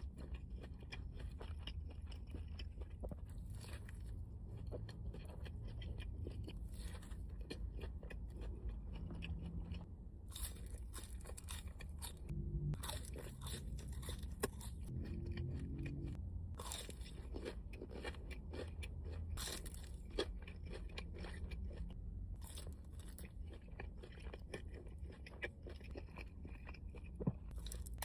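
Close-miked eating of fast food: repeated bites, crunching and wet chewing, with no talking.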